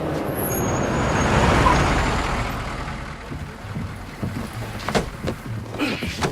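A motor vehicle driving past: engine and road noise grow louder, peak about a second and a half in, then fade away, with a few sharp clicks near the end.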